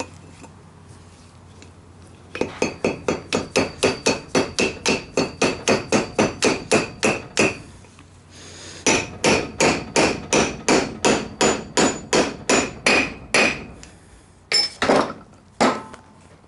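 Hammer striking a bearing race driver, seating a new outer bearing race into a 1998 Ford Ranger front hub: two runs of quick, even metal-on-metal blows, about four a second, with a short pause between, then a few last strikes near the end.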